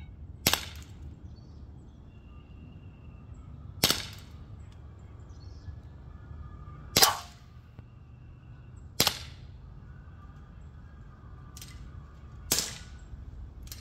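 Umarex Glock 17 Gen3 CO2 blowback BB pistol firing five single shots, each a sharp pop with a short ring-off, spaced two to three and a half seconds apart. There is a fainter click shortly before the last shot.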